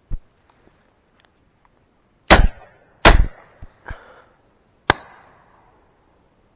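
Shotgun shots at flying ducks: two very loud shots less than a second apart about two seconds in, then a sharper single shot with an echoing tail about two seconds later.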